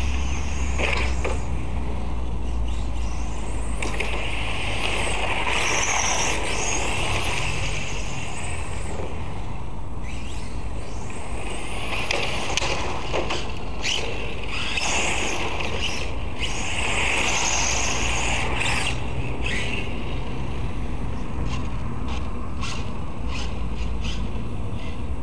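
Xray T3 1/10 electric RC touring car driving laps on block paving. Its Novak 13.5-turn brushless motor whines, swelling and fading several times as the car speeds up and passes, over a steady low rumble.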